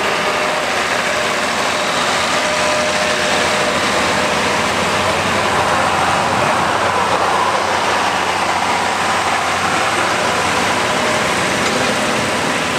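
Tractor engines running hard under load at a tractor pull: a loud, steady engine noise with no breaks.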